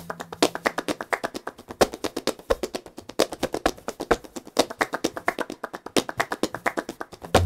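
Flamenco palmas: quick, rhythmic hand-clapping in a dense steady pattern, with the backing music's bass dropped out for this stretch.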